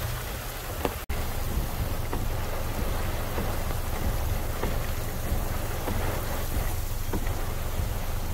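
Very heavy rain falling on a car, heard from inside the cabin as a steady hiss over the car's low rumble. The sound drops out for an instant about a second in.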